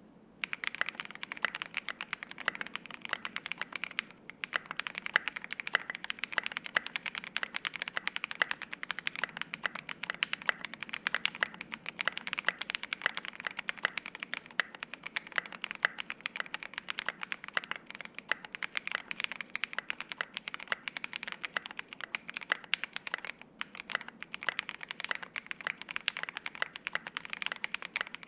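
Fast, continuous typing on a custom 60% gasket-mount mechanical keyboard (ai03 Polaris, half FR-4 plate) with lubed and filmed Alpaca V1 linear switches and tall SA-profile double-shot ABS keycaps. The typing starts about half a second in and pauses briefly twice.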